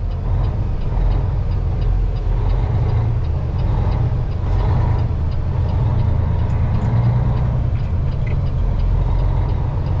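Semi-truck's diesel engine running under way, heard inside the cab as a steady low drone.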